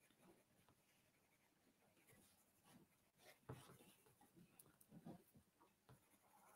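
Faint scratching of a pencil on drawing paper in short, irregular strokes, with a light tap about three and a half seconds in.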